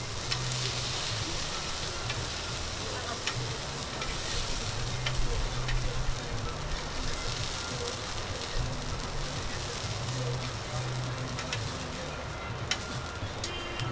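Steak cubes and garlic cloves sizzling steadily on a hot oiled flat-top griddle, with a few sharp clicks of metal tongs against the meat and the steel. A low hum comes and goes underneath.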